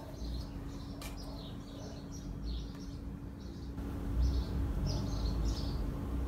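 Soft handling of a fabric lining and crocheted bag, with a steady low hum and faint high bird chirps recurring in the background.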